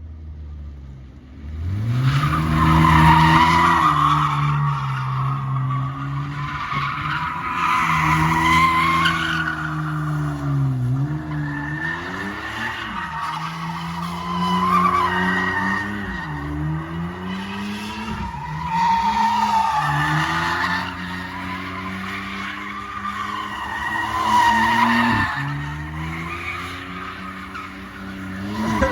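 Car engine revving up and down while the tyres squeal in long, repeated skids, as in donuts or drifting. It starts about a second and a half in.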